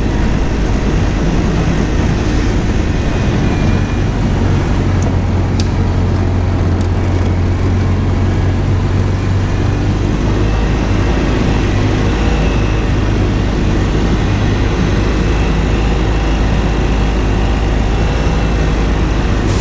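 Engine of a small open utility vehicle running steadily as it drives along, a constant low drone with no change in pace.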